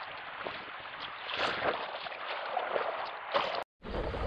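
Rushing river water with small splashes and knocks. Near the end it cuts off abruptly, and low wind rumble on the microphone follows.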